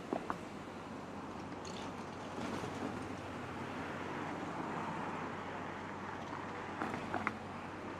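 City street traffic at an intersection, cars passing close by with a steady hum of tyres and engines that swells briefly midway. A few short sharp clicks just after the start and again near the end.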